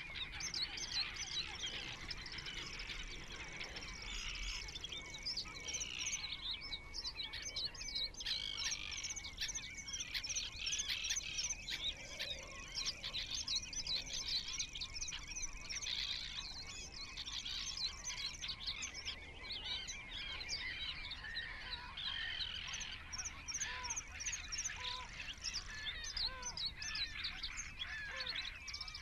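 A dense, unbroken chorus of many small birds chirping and twittering, their calls overlapping, with a few lower whistled notes toward the end.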